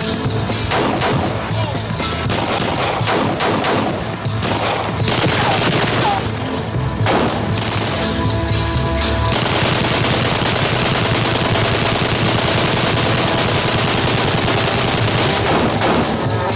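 Heavy gunfire from pistols and automatic weapons: rapid, overlapping shots that become one continuous, unbroken barrage about nine seconds in, with music underneath.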